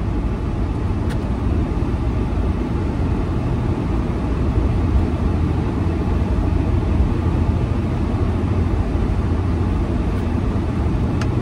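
Steady low rumble of road and engine noise inside a car's cabin while driving in traffic.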